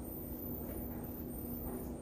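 Steady low background hum with a constant tone, and faint mouth sounds of someone chewing food.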